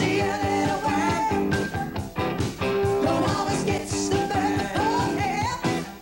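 Rock band playing a song: a singer over a steady drum beat and full band.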